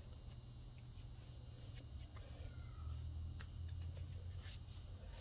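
Quiet background with steady high-pitched insect chirring and a low hum, broken by a few faint clicks and taps of small compressor parts being handled during assembly.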